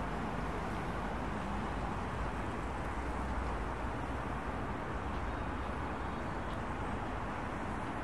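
Steady city ambience: a constant hum of distant road traffic, with no distinct events.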